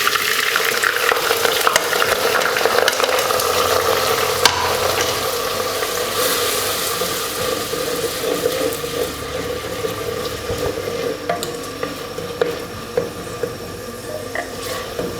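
Chopped onion sizzling as it fries in hot oil in a clay handi, loud at first and gradually dying down, with a few light knocks.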